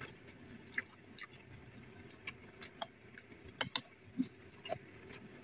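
Eating sounds: faint, scattered clicks and crunches of chewing raw cucumber, with a metal spoon scraping and tapping a plate.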